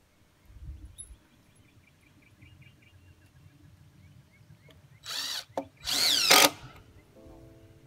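Cordless drill driving a screw into a wooden 4x4 frame: a short run about five seconds in, then a longer, louder run whose whine shifts in pitch as it loads up.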